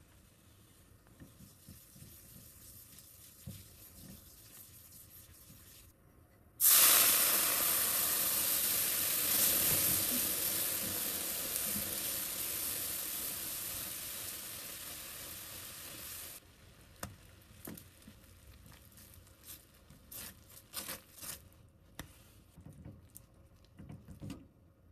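Butter, flour and milk sauce sizzling in a hot frying pan: a faint sizzle at first, then a loud hissing sizzle starts suddenly and slowly fades before cutting off about two-thirds of the way through. After that come short scrapes and taps of a spatula stirring the thickening cheese sauce in the pan.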